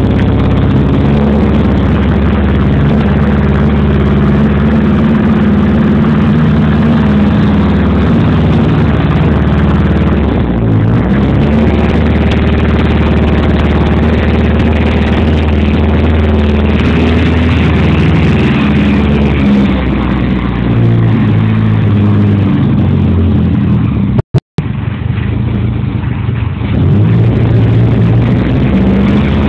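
Renault 5 GT Turbo's turbocharged four-cylinder engine running loud at the tailpipe of a 2.5-inch Barth exhaust with one full-flow silencer, mostly idling, with the engine speed rising and falling a few times. The sound cuts out for a moment about 24 seconds in.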